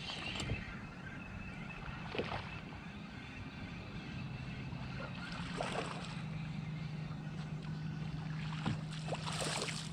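Fishing boat on choppy water: a steady low hum with intermittent splashes and small knocks of water against the hull.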